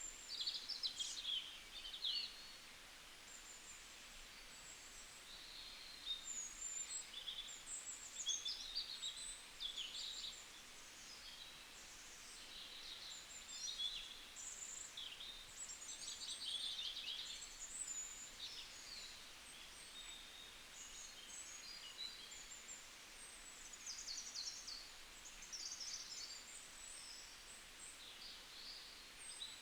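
Several wild birds chirping and singing over one another in quick, high calls and trills, with no pause longer than a second or two, over a faint steady background hiss.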